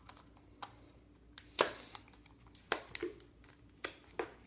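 Clear plastic deli cups being handled on a glass tabletop: about six short, sharp clicks and knocks, the loudest about one and a half seconds in.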